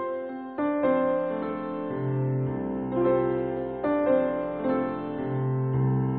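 Slow piano music: single notes struck every half second or so over held bass notes.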